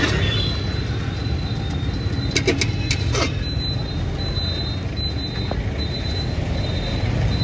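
Steady road-traffic rumble, with a few sharp metallic clinks of a steel serving spoon against the aluminium biryani pot about two and a half to three seconds in.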